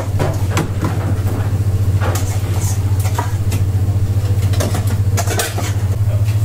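Kitchen sounds of sauce being spooned and poured from a wok onto a plate: short clinks and scrapes of a ladle and pan, several times. Underneath runs a steady low mechanical hum, the loudest thing throughout.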